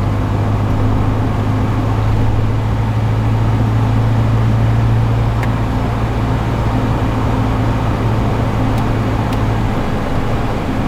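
Steady drone inside the cabin of a moving 1998 Honda Civic: its four-cylinder engine and road noise at an even pitch with a strong low hum, the air conditioning switched on. The hum fades out near the end.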